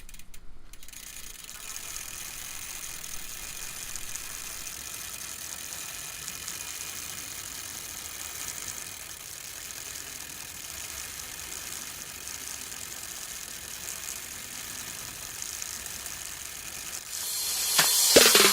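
Mountain bike rear freehub ratchet buzzing steadily as the bike coasts. Loud music with a beat comes in near the end.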